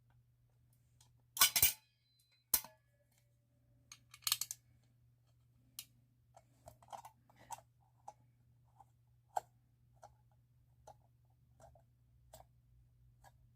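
Single-action Firelight BG6 fire alarm pull station being pulled: a loud group of sharp metallic clicks as the handle snaps down about one and a half seconds in, a single click a second later and another group around four seconds. Scattered light clicks and taps follow as the device is handled.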